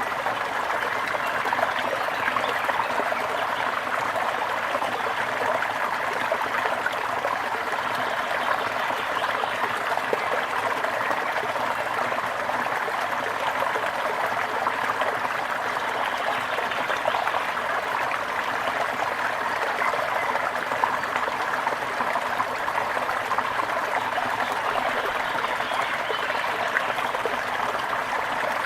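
Running water trickling and splashing steadily, a continuous small-stream sound with no breaks.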